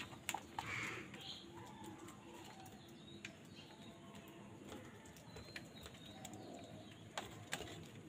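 House crows calling around their food: one harsh caw in the first second. It is followed by quieter background with a few scattered sharp taps.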